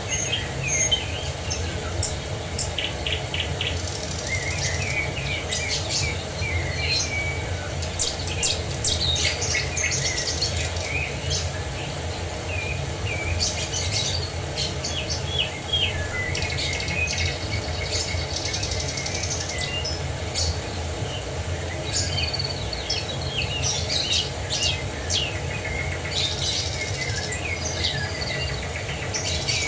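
Several songbirds chirping and trilling in many short, overlapping calls over the steady rush of a waterfall.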